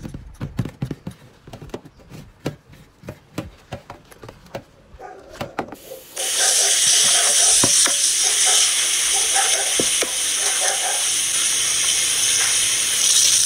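Dishes being scrubbed with a soapy sponge at a stainless steel kitchen sink: quick, irregular scraping strokes and knocks. About six seconds in, the tap is turned on and water runs steadily into the sink while a glass pot lid is rinsed under it.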